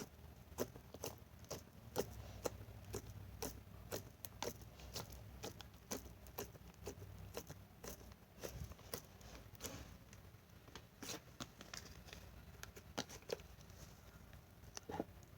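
Slime putty being squeezed and worked by hand, giving a string of small sharp clicks and pops at an irregular pace.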